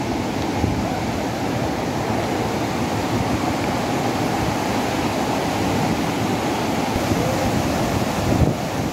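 Mountain river rushing over rocks in white-water rapids, a steady rush of water; a brief thump near the end.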